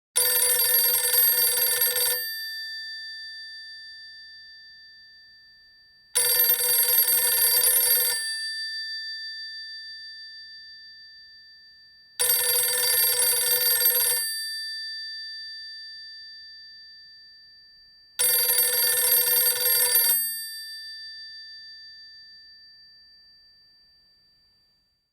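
Telephone bell ringing four times: four rings of about two seconds each, spaced about six seconds apart, each followed by the bell slowly ringing out.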